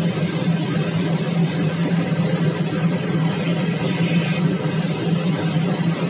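Steady rush of air around the cockpit of a Blanik L-13 glider in flight, over a constant low hum.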